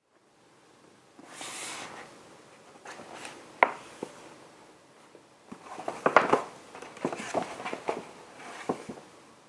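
Stiff paper shopping bag being handled: a short rustle of paper sliding, then scattered crinkles and sharp crackles of the paper, with one loud crackle a few seconds in and a busier run of crackles past the middle.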